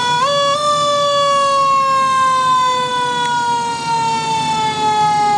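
Fire truck's mechanical siren winding down: a quick rise in pitch in the first half second, then one long, slowly falling wail, over a low steady rumble.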